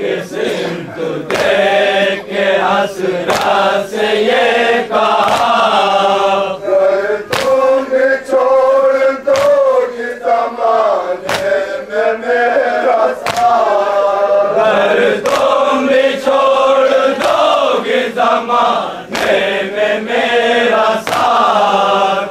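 A group of men chanting a Shia nauha (lament) in unison, with hands striking chests in matam in a steady beat about once a second.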